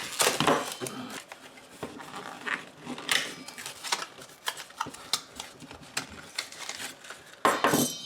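Clicks, taps and short scrapes of a small product box being worked open and its contents handled, with a louder scrape-and-rustle near the end.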